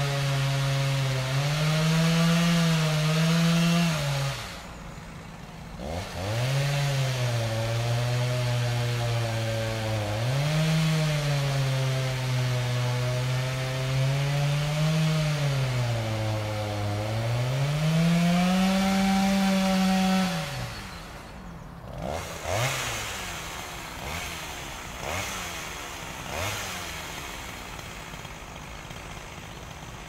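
Chainsaw engine revved up and down repeatedly at high speed, easing off briefly about four seconds in. After about twenty seconds it drops back to a low idle, with a few short blips of the throttle.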